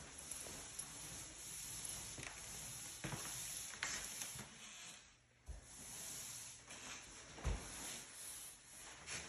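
Steady hiss with scattered footsteps and knocks on a hardwood floor, the loudest a low thump about seven and a half seconds in.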